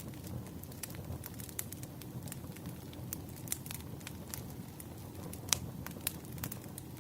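Firewood burning with irregular sharp pops and snaps over a low steady rumble of the flames, one louder pop about five and a half seconds in.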